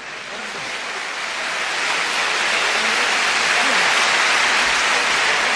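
Audience applause fading in right after the recitation ends and swelling to a steady, loud level, with a few voices faintly in it.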